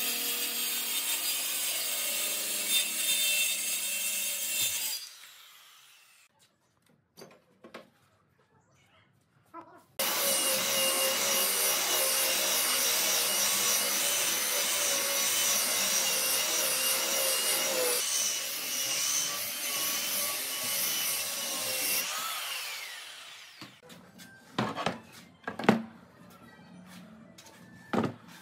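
Circular saw running along a guide rail, cutting the edge of a wooden tabletop, stopping about five seconds in. After a quiet gap with a few small clicks, a belt sander runs steadily over the wooden top for about twelve seconds and then winds down. It ends in a few scattered knocks.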